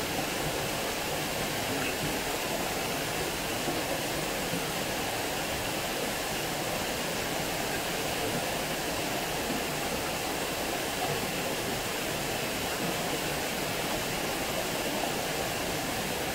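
Water pouring steadily over a small weir and splashing into the pool below, a constant even rush.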